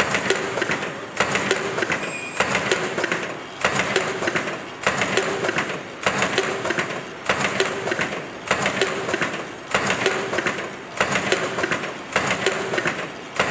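NBL-4800F fully automatic flat face mask machine running, its air-driven mechanisms clattering and clicking in a regular cycle about every 1.2 seconds. There is a brief high whine about two seconds in.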